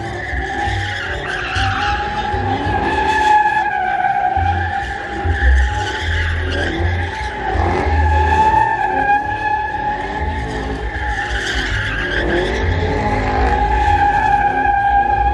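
Rear tyres of two Chevrolet Camaro SS cars squealing as they spin donuts, a long held squeal that wavers slightly in pitch and eases off for a moment about three-quarters of the way through.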